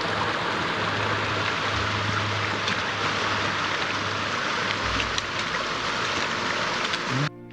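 A mountain creek rushing steadily over rocks at a trail crossing; the sound cuts off suddenly near the end.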